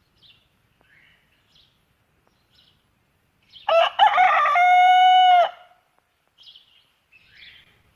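A rooster crowing once, a single crow of about two seconds that ends on a long held note, with faint high chirps before and after it.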